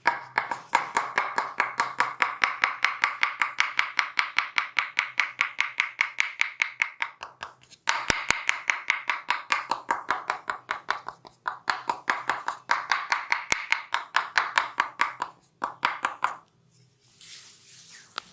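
A masseur's hands striking the body in fast chopping percussion strokes, several sharp slaps a second in a steady rhythm. There is a brief break about eight seconds in, and the strokes stop about sixteen seconds in.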